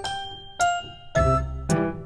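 Background music: a light keyboard tune of struck, decaying notes, with low bass notes joining about a second in.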